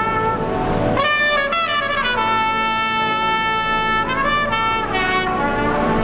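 Trumpet playing a slow melody over electronic keyboard accompaniment: a short run of notes about a second in, then one long held note, another brief run near four seconds, and the line dying away about five seconds in.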